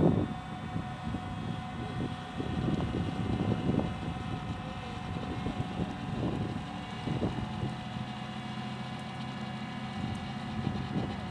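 LAV-25 light armored vehicle's diesel engine running steadily with a constant whine as it drives off the beach into the water, with gusts of wind on the microphone.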